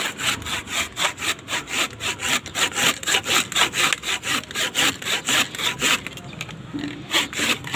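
Handsaw with a wooden handle cutting through a thick tree trunk in rapid back-and-forth strokes, about four a second. The strokes grow weaker about six seconds in.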